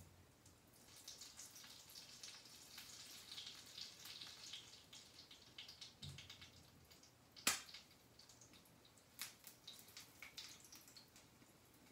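Hot oil sizzling faintly with fine crackles around stuffed French toast held on its edge in a frying pan, densest in the first half. One sharp click sounds a little after halfway.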